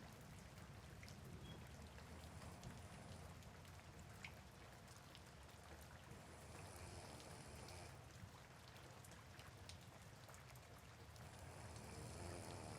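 Soft, faint rain: an even hiss of rainfall with scattered drops and a low rumble underneath. A faint high hiss swells and fades about every four seconds.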